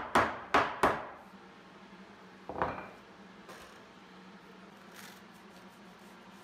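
Three quick wooden knocks, then a single one about two seconds later, as a cherry side panel is driven by hand down into a tight, freshly glued dado joint.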